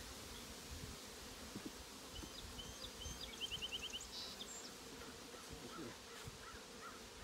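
Honeybees buzzing around an open hive, a faint steady hum. A quick run of short high chirps comes in about two to four seconds in.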